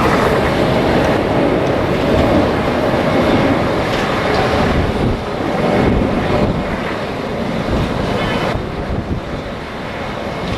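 Strong gusting wind roaring and buffeting the microphone, rising and easing from moment to moment.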